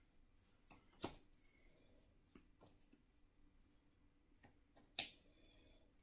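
A few faint taps and clicks of a small stack of playing cards being cut by hand, the sharpest about a second in and near the end.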